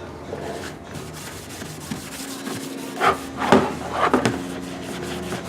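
A red Scotch-Brite pad scrubbing an oxidized plastic motorcycle fender wet with Simple Green, taking off the dirt and oxidation. Steady rubbing, with a few louder scrapes about three to four seconds in.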